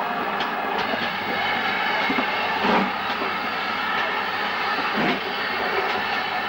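Steam locomotive and train running, a steady rumble with a few sharper beats scattered through it.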